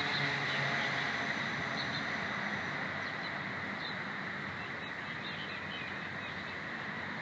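Steady outdoor background hiss with a few faint, short, high bird chirps scattered through it.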